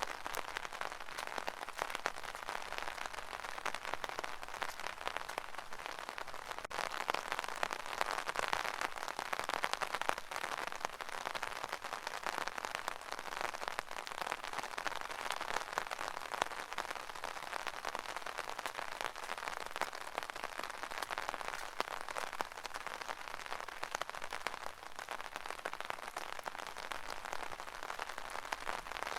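Steady rain pattering on an umbrella canopy, a dense even patter of countless small drop impacts.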